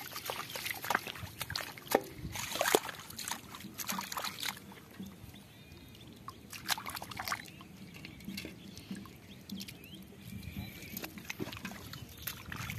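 Splashing and squelching in shallow water and wet mud: bare feet slapping through the flooded field and hands digging in the mud. The splashes come thick and irregular at first, ease off for a few seconds in the middle, then return as scattered slaps.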